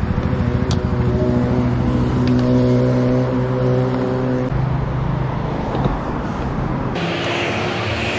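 An engine running steadily, then, after a sudden change about seven seconds in, a steady hiss of petrol pouring from a pump nozzle into a motorcycle's fuel tank.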